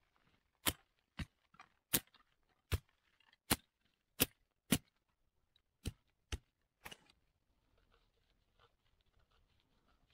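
A series of about eleven sharp clicks or snaps, one every half second to a second, stopping about seven seconds in, followed by faint rustling.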